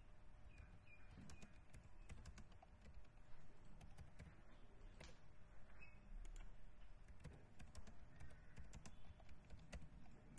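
Faint, irregular keystrokes on a computer keyboard as terminal commands are typed.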